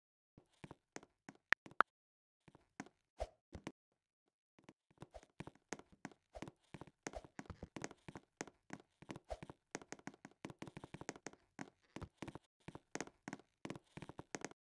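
Irregular light taps and clicks, sparse at first and then coming several a second from about five seconds in.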